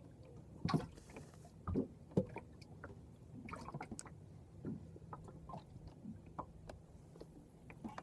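A few knocks and clunks on a small fishing boat, with scattered small clicks, over a faint steady low hum.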